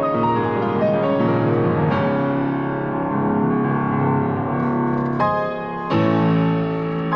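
Piano music: slow sustained chords and melody notes, with fresh chords struck about two seconds in, and twice more near the end.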